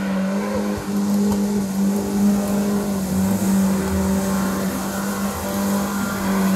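Chevrolet Niva's four-cylinder engine running at steady, even revs as the car wades through deep water and mud, its wheels churning and splashing.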